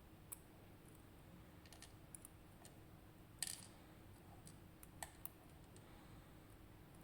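A few light, sharp clicks and taps of small metal lock parts being handled and set down while a high-security lock cylinder is taken apart. They are scattered and irregular, with the loudest about halfway through.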